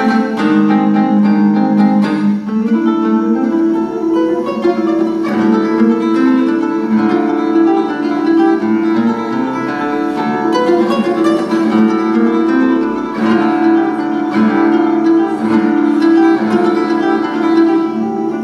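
Solo nylon-string classical guitar played fingerstyle: a fast, unbroken stream of plucked notes and chords.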